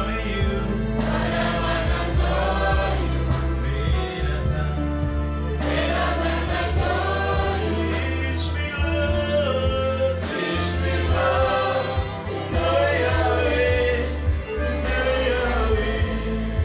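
Gospel choir singing with a lead male singer on a microphone, over electronic keyboard accompaniment with a steady bass line.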